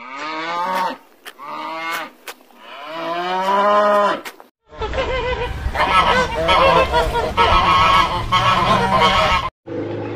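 A cow mooing three times, the last moo the longest, then, about halfway through, a flock of domestic geese honking over one another.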